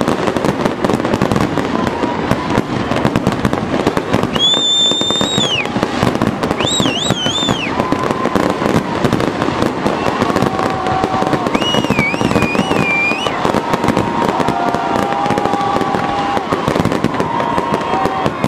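Dense, unbroken crackling and popping of many fireworks and firecrackers going off together. A high whistle rises over the crackle three times: a steady one about four seconds in, a warbling one shortly after, and a wavering one around twelve seconds in.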